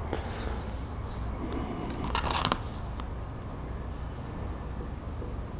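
Clear PVC hinge tape being peeled back up off a foam wing and repositioned, with one short crackling rustle a little after two seconds in and a few faint ticks, over a steady high-pitched background hiss.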